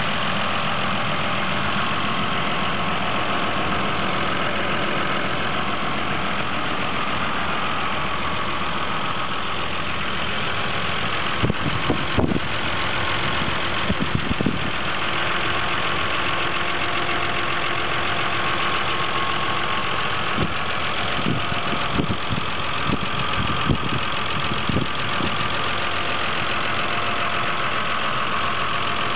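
Toyota 7M-GTE 3.0-litre turbocharged straight-six idling steadily, heard close up under the bonnet. A few short knocks come through around the middle and again later.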